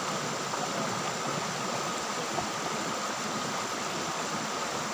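Steady rush of a shallow, rocky river running over stones and small rapids.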